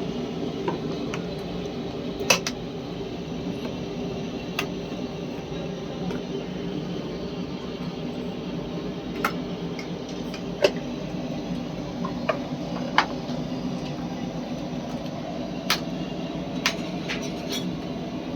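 Steady machine hum with sharp clicks and knocks at irregular moments, about seven of them.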